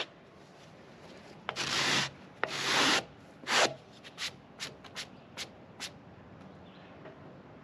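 Rubbing and brushing strokes across a freshly sawn wood slab, most likely sawdust being swept off by hand to expose a buried nail. There are two longer strokes, then a shorter one, then a run of quick short swipes.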